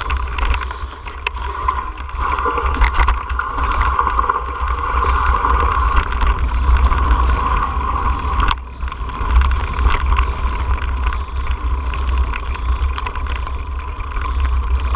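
Mountain bike riding fast down a rocky dirt singletrack: tyres rolling over dirt and loose rock, the bike rattling with sharp knocks over bumps, over a steady rumble of wind on the microphone.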